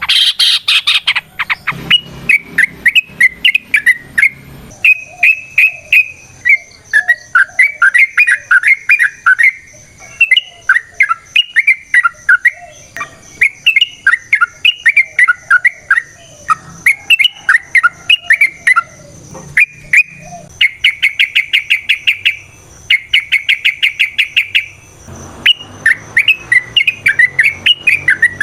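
Yellow-vented bulbul (trucukan) singing long, rapid runs of loud chirping notes, phrase after phrase with only short breaks.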